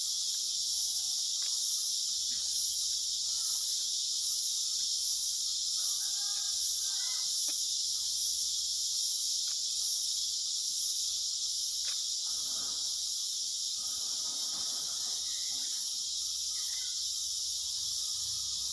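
Loud, steady insect chorus: a high, even buzz with a faint regular pulsing on top. A few faint short calls and clicks sound over it.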